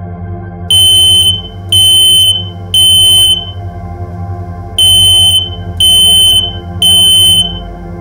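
Ceiling smoke alarm sounding in two sets of three loud, high-pitched beeps, each about half a second long, with a pause between the sets. This is the standard three-beep pattern of an alarm that has detected smoke. A steady low synth drone runs underneath.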